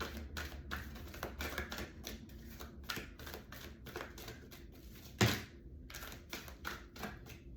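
Tarot cards being shuffled by hand: a run of quick, irregular clicks and flicks, several a second, with one louder slap about five seconds in.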